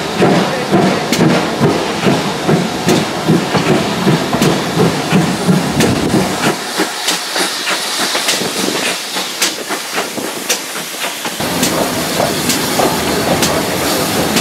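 GWR 41XX Large Prairie tank steam locomotive working a short train, its exhaust beating in a steady rhythm of about two to three beats a second with hiss and sharp clicks from the wheels. The deep rumble drops away for about five seconds midway, then returns.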